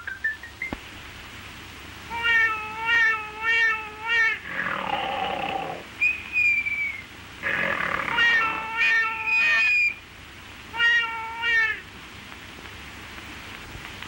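Cartoon sound effect of a baby crying: short wavering wails in quick groups, coming in three spells. Between the wails comes a sleeper's snoring, a breathy rasp and a short falling whistle.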